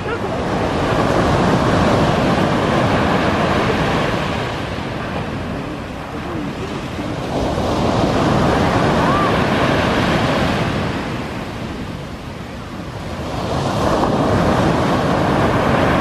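Sea waves breaking and washing up a sandy beach, the surf swelling and falling back three times, about every six seconds.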